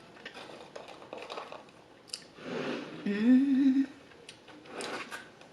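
Close mouth sounds of someone eating: small clicks and chewing noises, then a closed-mouth "mmm" hum of enjoyment just past the middle, the loudest sound.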